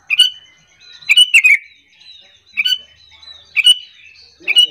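Sooty-headed bulbul (kutilang) calling: five quick, sharp call phrases about a second apart, with softer chirps between them. It is a bulbul lure call, meant to set other bulbuls calling back.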